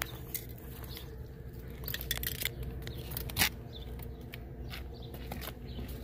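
Hinged plastic weatherproof cover of an outdoor GFCI outlet box being flipped open and handled, giving scattered plastic clicks and snaps, with one sharp snap about halfway through, over a steady low hum.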